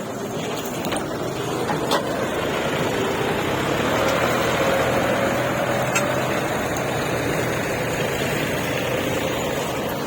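Heavy diesel machinery engine running. Its revs climb about three seconds in, hold, then ease off, with a couple of faint knocks.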